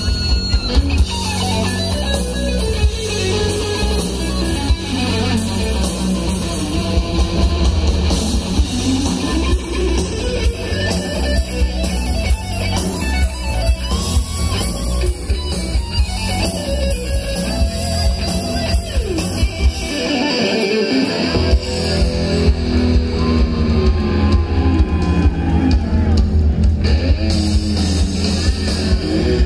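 Live rock band playing through the PA: electric guitars over bass guitar and drum kit, heard from within the crowd. The bass drops out for about a second roughly twenty seconds in, then comes back.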